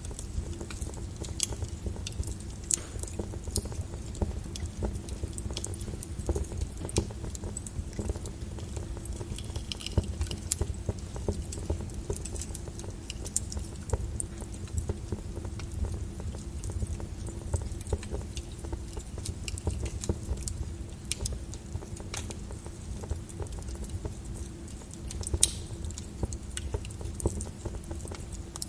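Wood fire crackling with irregular sharp pops over steady rain patter, one pop louder near the end.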